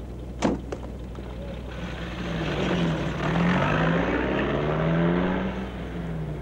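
GAZ-21 Volga's four-cylinder engine accelerating away, its pitch rising and dropping back several times as it shifts up through the gears. A single thump comes just before it, about half a second in.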